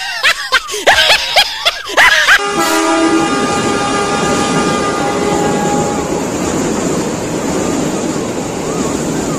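A train horn sounds a steady chord starting a little over two seconds in and fades out over about three seconds, over a continuing train rumble. Before it come short, choppy bursts of pitch-bending voice sounds.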